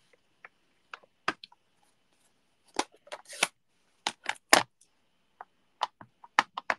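Irregular sharp clicks and taps, the loudest about halfway through: a clear acrylic stamp block and other craft tools being handled and set down on the desk while stamping.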